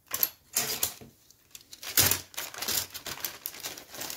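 Hard plastic model-kit sprues clicking against each other and a clear plastic bag crinkling as they are handled and slid into the bag. There are several sharp clicks, the loudest about two seconds in, with lighter rustling in between.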